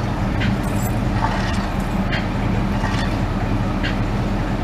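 A vehicle engine running steadily with a low hum, and short clicks about once a second over it.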